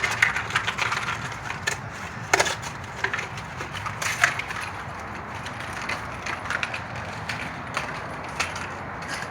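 Irregular clicks and knocks of a ratchet, extension and spark plug socket working on the last spark plug of a Toyota Corolla engine, busier in the first few seconds.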